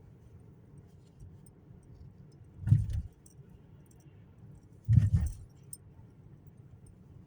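Two short rattling knocks with a metallic jingle, about two seconds apart, over quiet background.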